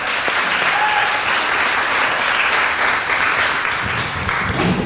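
Audience applauding, with a low sound coming in near the end.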